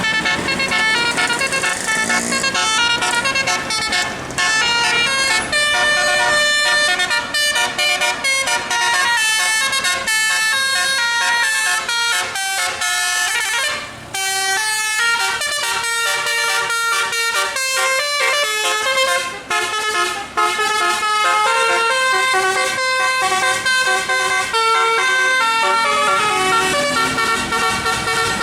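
Bus telolet musical air horn playing a long, fast tune of stepping notes, with a few brief breaks.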